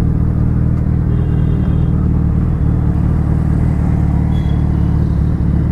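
Suzuki Hayabusa's inline-four engine running at a steady low speed under the rider, a constant low rumble while riding through traffic.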